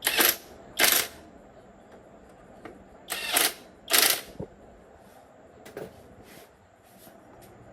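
Metal tools and parts clinking and scraping: two pairs of sharp, bright noises, one pair at the start and another about three seconds in, followed by a few faint clicks.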